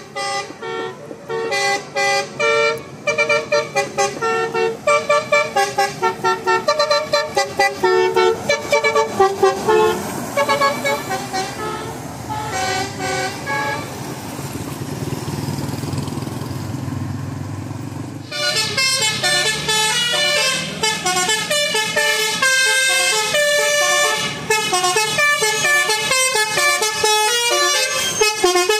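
Telolet horn, a multi-tone musical air horn, playing a rapid melody of short notes stepping up and down. The notes stop for a few seconds a little past halfway, leaving a low drone, then start again brighter and busier.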